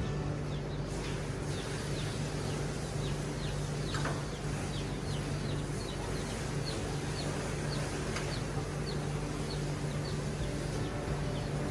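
Short, high chirping calls repeating about once a second over a steady low hum.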